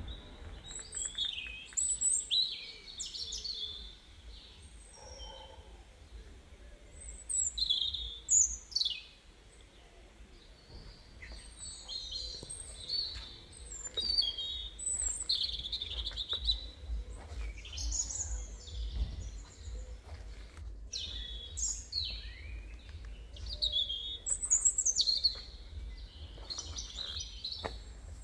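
Small birds chirping and calling in quick, high-pitched notes, with a brief lull about ten seconds in, over a steady low rumble.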